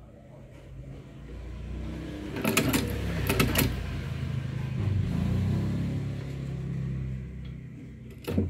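Long-arm shoe-patcher sewing machine stitching through a bag. A low hum builds up, with a burst of rapid clattering from the needle mechanism about two and a half to three and a half seconds in, and one sharp clack near the end.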